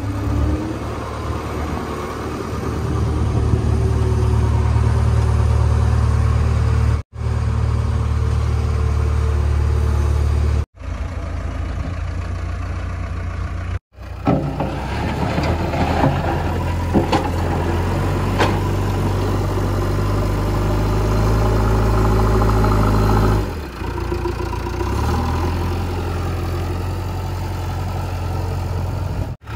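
Diesel engines of heavy construction machines running steadily: first a Komatsu GD405A-2 motor grader, then a JCB backhoe loader working soil with its loader bucket, with a few light knocks. The sound breaks off abruptly several times between clips.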